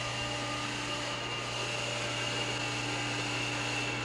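Steady mechanical hum with an even hiss and a faint high whine, unchanging throughout.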